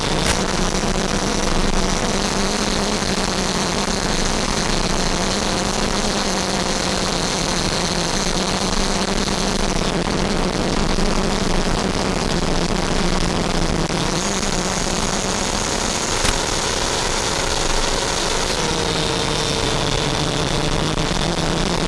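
Electric ducted fan whine and rushing airflow from a Freewing F-5 model jet in flight. The high whine changes with throttle: it fades out about ten seconds in, returns higher around fourteen seconds, then drops in pitch near the end.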